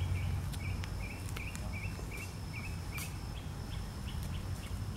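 A bird calling with a run of short, repeated chirps, about two to three a second, over low outdoor background noise, with a few soft footsteps on the path.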